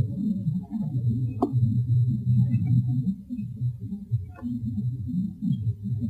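Low, muffled voice-like sounds in a field recording, going on and breaking off irregularly, with one sharp click about a second and a half in.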